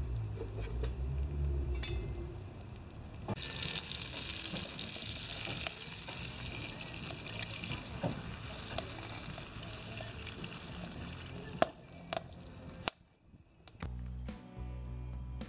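Tomatoes frying in a small pan on a wood-burning rocket stove: a steady sizzling hiss that grows louder about three seconds in, with a few sharp metal clicks near the end. The sizzle then cuts off and music starts.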